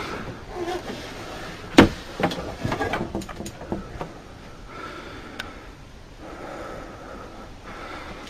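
A sharp knock about two seconds in, then a run of lighter knocks and clicks, over a faint hiss.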